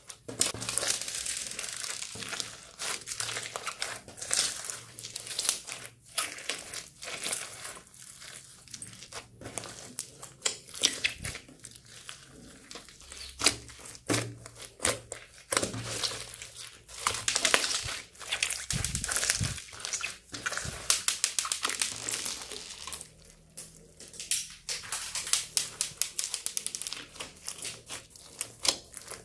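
Hands kneading and squeezing a big mass of slime mixed with foam beads. The slime makes dense runs of small sticky crackles and pops in bursts with each squeeze, easing off briefly about three-quarters of the way through.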